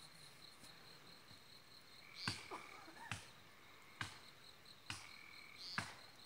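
Hatchet chopping into a pine trunk: five sharp strikes, about one a second, starting about two seconds in. A steady high insect trill runs behind them.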